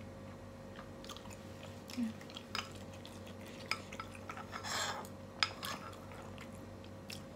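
Metal spoon and fork clinking and scraping against a skillet of meatball soup: scattered light clinks, busiest in the second half, with one sharper clink about five seconds in.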